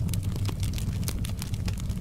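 Wood fire burning in a fireplace: a steady low rumble with frequent, irregular crackles and pops.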